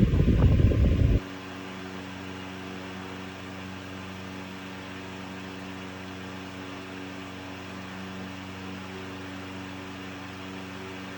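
1905 Westinghouse 'Tank' small-motor desk fan running. For about the first second its breeze buffets the microphone loudly, then the sound drops suddenly to a steady motor hum with a faint whirr.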